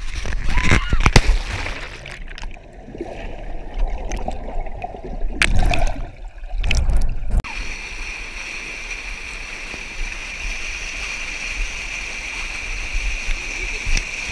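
Uneven splashing and knocks of river water, then, after a sudden change about seven seconds in, a steady rush of whitewater close around the camera's microphone.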